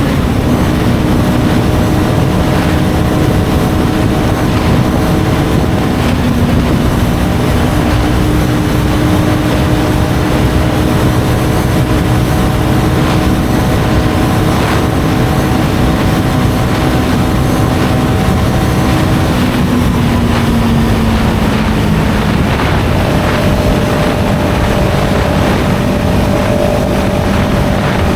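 CFMOTO 700CL-X Sport's parallel-twin engine running through its stock exhaust at steady revs, the pitch sliding down about twenty seconds in before settling again.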